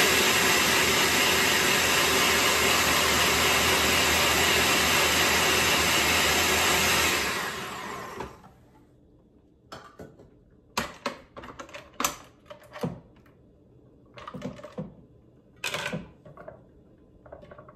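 Veggie Bullet electric spiralizer motor running steadily as butternut squash is pushed through, then winding down about seven seconds in. After that come scattered plastic clicks and knocks as the lid and bowl are handled.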